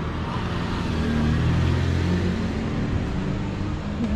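A car driving past close by, its engine and tyres swelling to their loudest about a second and a half in, then easing off.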